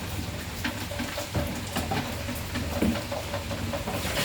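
Rain falling, an even hiss with scattered taps of individual drops.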